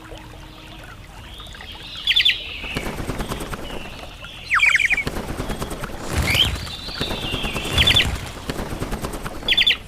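Birds calling in short clusters of three or four quick, sharp high notes, repeated about five times, one cluster sliding downward, over a rough rustling noise.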